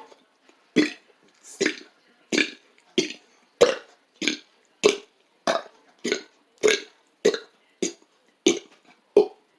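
A man burping the alphabet: a run of short, separate burped letters, one after another about every half second.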